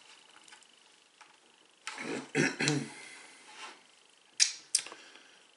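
A person tasting a bite of apple quark cake. It is quiet at first, then a brief voiced hum comes about two seconds in while he chews, and two sharp clicks follow near the end.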